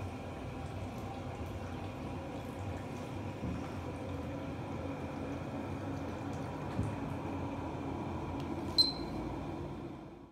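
Steady indoor room noise with a faint hum, and one short ringing tick about nine seconds in; the sound cuts off suddenly at the end.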